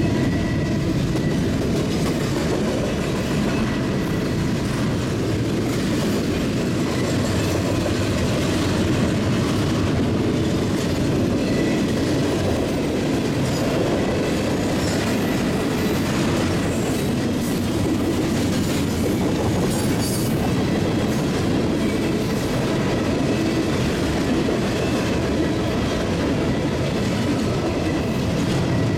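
Double-stack intermodal freight cars rolling past at speed: a steady rumble of steel wheels on rail.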